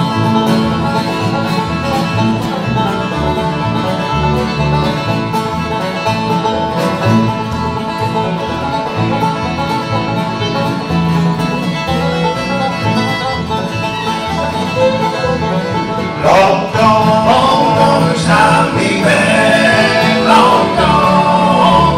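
Bluegrass band playing: banjo, acoustic guitar, upright bass and fiddle together. About sixteen seconds in, a louder, bending fiddle line comes to the front.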